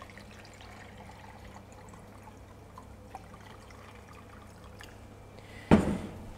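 Water poured from a glass jug into a plastic measuring jug, a faint steady trickle. Near the end, a sudden loud knock as the glass jug is set down on the steel counter.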